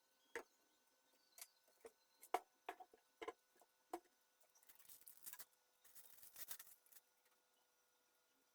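Light handling of computer parts: a string of sharp clicks and taps over the first few seconds, then about two seconds of rustling and scraping.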